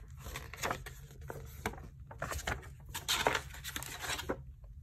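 Paper pages of an album photobook being flipped through by hand: a quick run of page flaps and rustles, the loudest a little after three seconds in, stopping shortly before the end.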